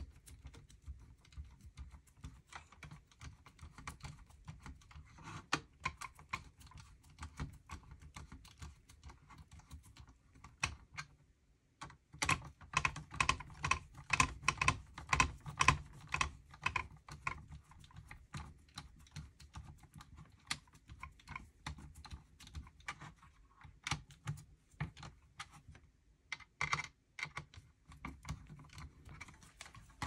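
Hands fitting a 2.5-inch SSD into a metal drive caddy: a long run of small metallic clicks and taps, busier and louder from about halfway.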